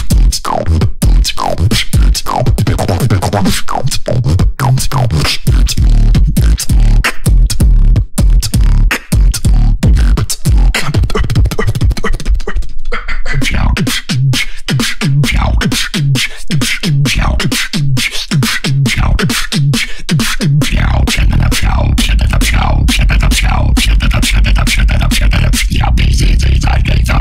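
Beatboxer performing into a handheld microphone, deep bass-heavy beatboxing: a dense run of sharp clicks and hits over low bass, then pulsing bass notes, settling about 20 seconds in into a continuous deep bass under fast crisp sounds.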